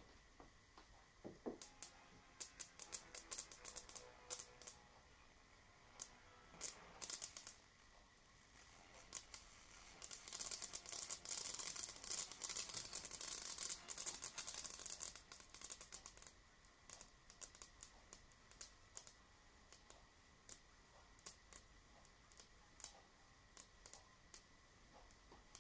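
High-voltage sparks snapping at an ion wind blower: scattered sharp cracks throughout, thickening into a dense crackle for several seconds around the middle, over a faint steady high tone. This sparking breaks out as soon as the blower's current is modulated with music.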